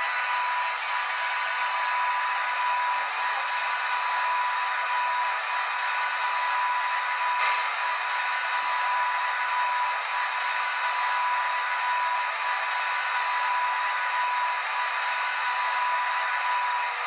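A model railway running: a steady whirring hiss with a constant high-pitched hum that does not change, and one faint click about seven and a half seconds in.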